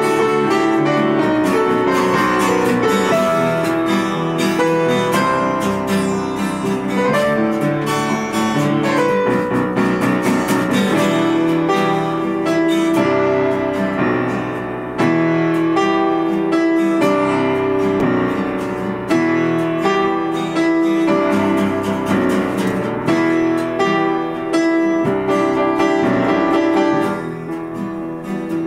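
Upright piano and acoustic guitar playing an instrumental piece together, without singing, getting somewhat softer near the end.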